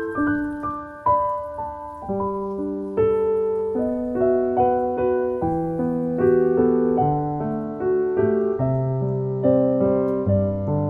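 Background piano music: a slow, gentle melody over chords, each note struck and then fading.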